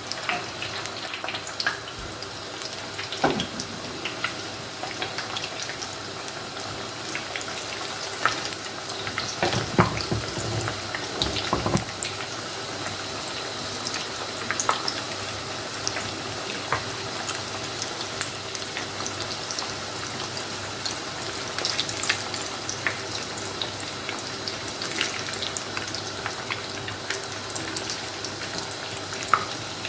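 Samosas deep-frying in hot oil in a frying pan: a steady bubbling sizzle, with a few sharp clicks as a plastic slotted spoon moves them. The loudest clicks come about ten seconds in.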